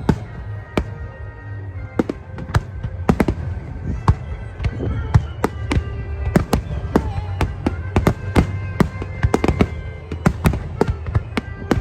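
Aerial fireworks shells bursting in a rapid, continuous barrage, several sharp bangs a second, with music playing underneath.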